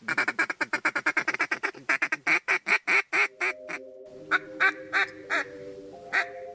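Duck call blown in a rapid feeder chuckle, about ten short notes a second, for roughly three seconds: the chatter used to keep approaching ducks' attention as they come into the decoys. Then a few single quacks over sustained low notes of background music.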